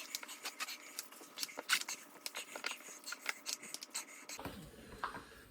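Irregular light clicking and scraping, many small ticks in quick succession; about four seconds in it thins out and a low hum comes in.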